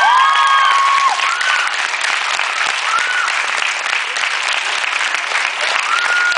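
Audience applauding loudly, with several people whooping and cheering over the clapping in the first second and single whoops now and then afterwards.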